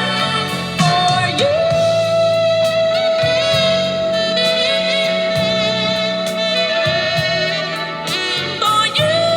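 Recorded pop-soul ballad music: a saxophone holds long, wavering notes over a band accompaniment, with a new held note starting near the end.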